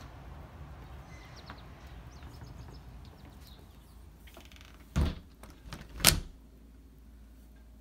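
A door with a metal lever handle being shut: two sharp knocks about a second apart, the second one the louder.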